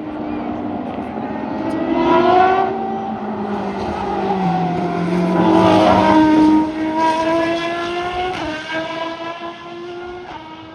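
Race cars passing at speed one after another, their engine notes swelling as each car comes by and falling in pitch as it goes away. Near the end one engine note drops suddenly.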